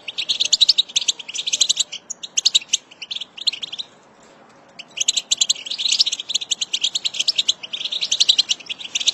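European goldfinch chattering: dense runs of rapid, short high twittering notes. They break off for about a second roughly four seconds in, then resume.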